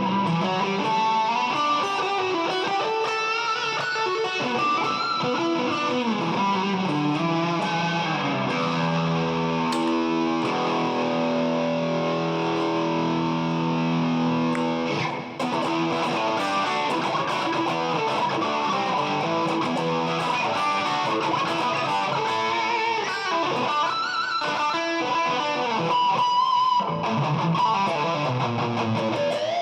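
Electric guitar played through effects pedals: single-note lines and chords, with one chord held for several seconds near the middle, a brief drop-out just after it, then more playing.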